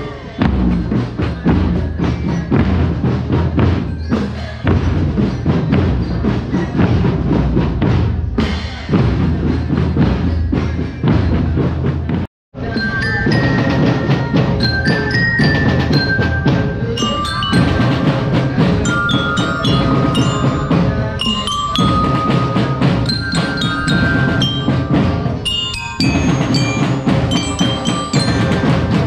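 Marching drum band playing: drums at first, then, after the sound cuts out for a moment about twelve seconds in, marching glockenspiels (bell lyras) play a bright melody over the drums.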